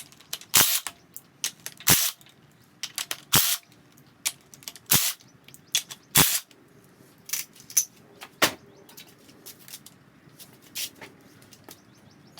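Sharp metal clinks and clanks of hand tools on an air-cooled VW engine case, a dozen or so at irregular intervals, as the main case nuts and their washers are worked off and set down.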